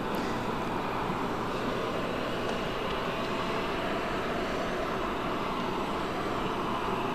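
Steady jet aircraft noise on an airport apron: an even roar that holds the same level throughout.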